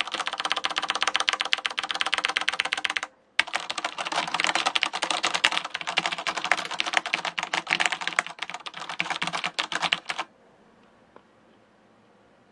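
Fast typing on a Corsair Strafe mechanical keyboard with Cherry MX Red linear switches: a dense, rapid run of keystroke clacks that breaks off briefly about three seconds in, then stops about ten seconds in.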